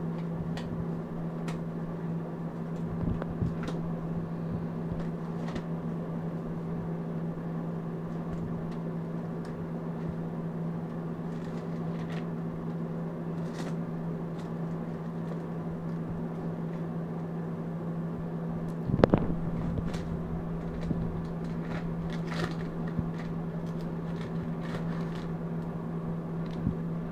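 Thin Bible pages rustling and softly clicking as a monkey turns and handles them, over a steady low hum. About 19 seconds in there is one louder bump.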